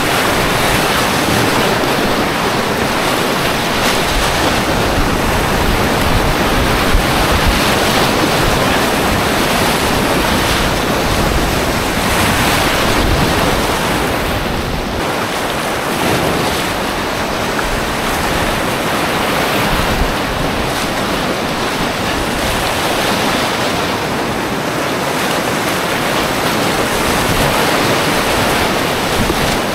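Loud, steady rush of whitewater rapids churning right around a whitewater kayak as it runs a continuous, rocky river rapid.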